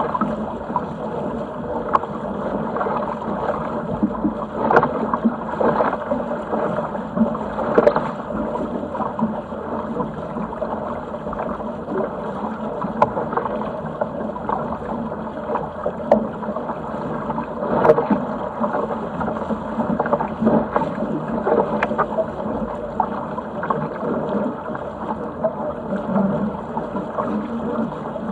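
Water rushing and splashing along the hull of a Sigma 8 metre racing yacht under sail, with a few brief sharper knocks or slaps now and then.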